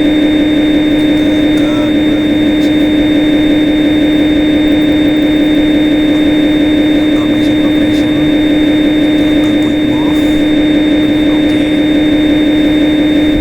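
Simulated CNC lathe spindle motor in Swansoft CNC simulation software, running at a steady speed after an M03 S1000 command (spindle on, 1000 rpm): a loud, steady electric whine.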